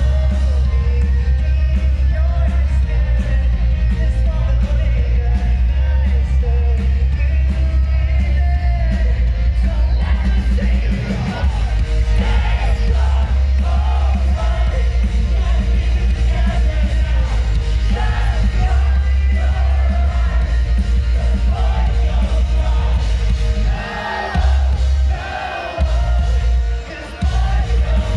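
Rock band playing live through a festival PA, with sung and shouted vocals over heavy bass. The music is loud and drops out briefly a few times near the end.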